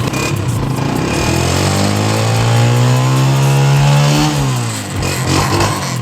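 Honda CG125's single-cylinder four-stroke engine being revved: the pitch climbs steadily over about three seconds, drops back to idle, then gives a short blip of throttle near the end.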